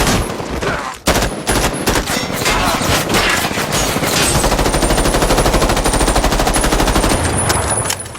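Sustained automatic rifle fire in a film gunfight: several weapons firing rapid, overlapping bursts. There is a brief break about a second in, and the fire eases off near the end.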